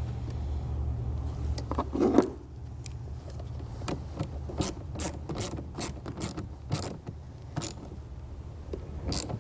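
Hand ratchet with a 10 mm socket running a nut down onto a battery terminal stud: a run of sharp, irregular ratcheting clicks. There is a louder rattle about two seconds in.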